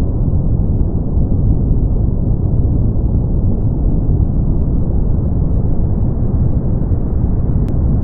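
Brown noise: a steady, deep hiss, strongest in the low end and fading toward the treble, with no changes in level.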